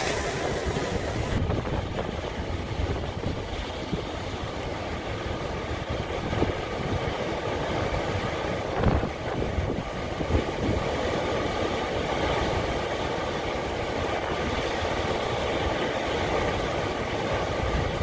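Heavy sea surf breaking and churning over coastal rocks, a continuous roar with a few louder wave crashes around the middle, mixed with strong wind buffeting the microphone.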